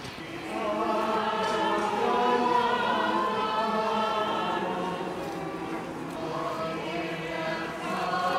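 A group of people singing together in unison, a slow song with long held notes, starting about half a second in.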